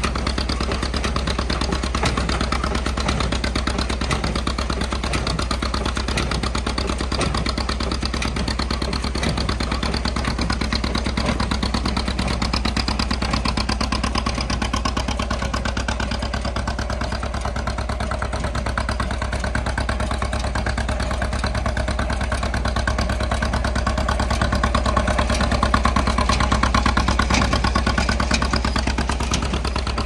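John Deere B two-cylinder tractor engine running steadily under load while a John Deere 14T square baler clatters as it picks up and packs corn stalks. The sound swells a little late on.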